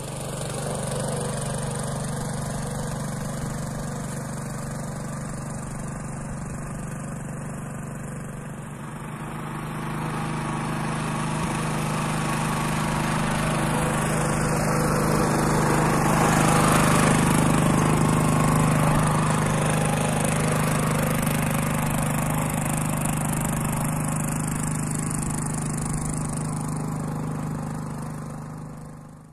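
Walk-behind tractor's small petrol engine running steadily under load as it tills furrows in soil. It grows louder towards the middle and then eases off.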